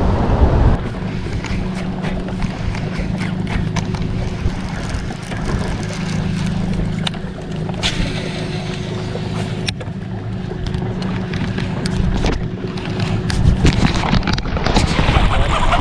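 Electric trolling motor humming steadily, with scattered light clicks over it; the hum stops near the end.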